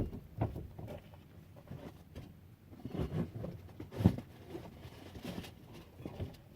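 Scattered light knocks, clicks and rustling as tools and hardware are handled, with one louder knock about four seconds in.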